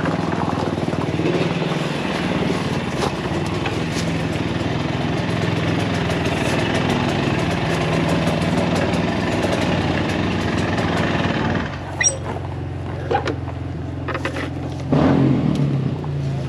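Off-road vehicles running, with loud wind and riding noise over a steady low engine hum. About twelve seconds in the riding noise drops away, leaving engines idling, with a few short knocks.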